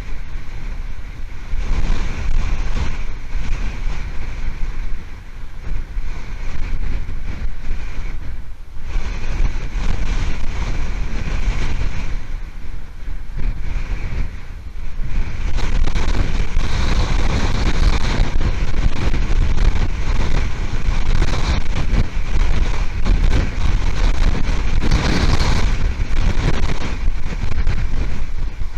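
Hurricane Milton's storm wind buffeting the outdoor microphone of an eagle nest camera: a loud, rumbling rush that swells and dips in gusts, louder and more constant from about halfway through.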